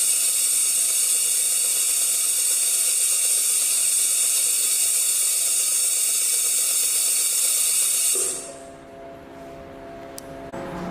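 Loud, steady hiss with a high whine running through it, which cuts off about eight seconds in.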